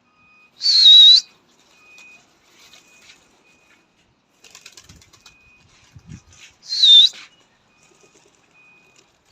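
Two loud, shrill whistles about six seconds apart: a pigeon keeper whistling to drive his flock of domestic pigeons into the air. Faint fluttering, likely wingbeats, comes between them.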